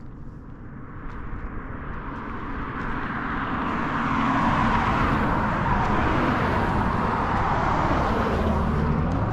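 Cars passing on a highway: tyre and road noise swells over the first few seconds, holds loud, and eases near the end, over a steady low rumble.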